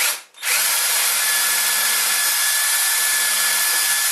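Cordless drill boring a pilot hole into MDF: a brief burst on the trigger, then from about half a second a steady run with a constant motor whine, stopping right at the end.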